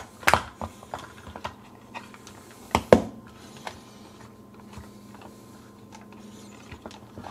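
Plastic clicks and knocks of a Foscam C1 network camera being handled and turned on its stand: a sharp click at the start and just after, a louder pair of clicks about three seconds in, and lighter scattered ticks.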